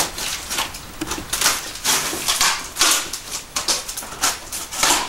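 Cardboard and foam packing scraping and rubbing in a run of short strokes as an inner box is worked out of a large shipping carton.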